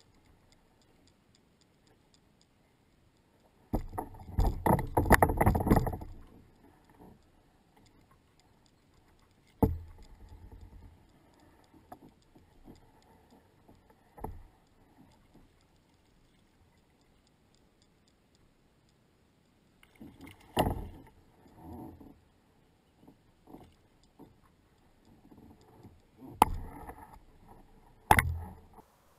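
A hooked fish fought beside a plastic fishing kayak: a loud burst of splashing and thrashing about four seconds in, then scattered sharp knocks and clatter of rod, net and gear against the hull.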